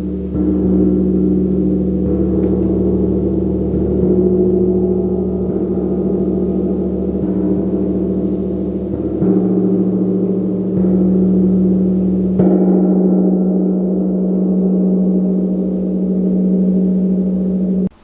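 A gong played continuously: a dense, sustained wash of shimmering overtones that swells anew with each soft mallet stroke, three of them close together in the second half. The sound stops suddenly just before the end.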